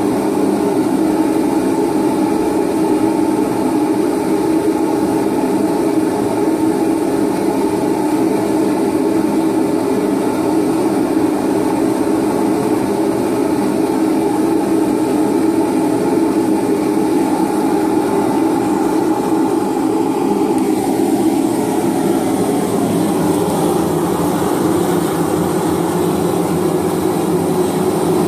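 Homemade three-burner propane forge running, a loud, steady rush of burning gas from its venturi burners. The sound shifts in character about three quarters of the way through, turning more hissy.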